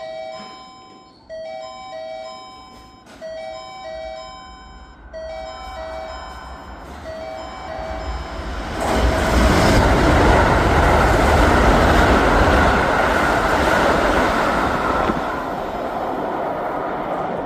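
Station passing-warning chime repeating its short electronic melody, then a Keikyu 2100-series limited express runs through the station without stopping: a loud rush of wheels and running gear starts about nine seconds in and fades slowly near the end.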